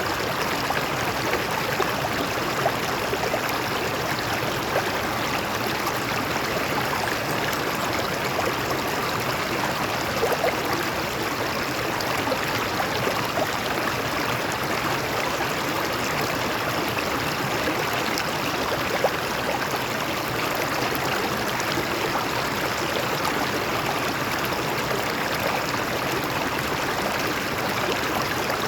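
A stream of water flowing over rocks, a steady rushing babble with occasional small splashes.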